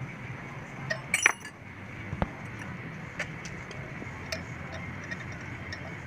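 Metal hand tools being handled, clinking and knocking against each other and the workpiece, with a bright ringing clink about a second in and a sharper knock just after, over a steady low hum.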